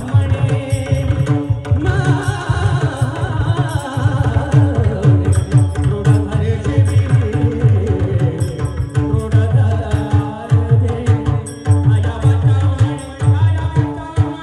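Marathi abhang devotional singing accompanied by a pakhawaj barrel drum, whose deep strokes beat a steady rhythm under the voice.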